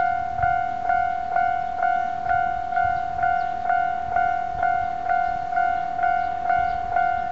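Japanese level-crossing warning bell ringing, a steady electronic ding struck evenly about twice a second: the crossing is closed for an approaching train.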